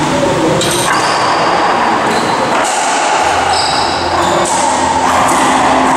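A few sharp knocks of a racquetball off racquet and court walls, over the steady echoing noise of an enclosed racquetball court.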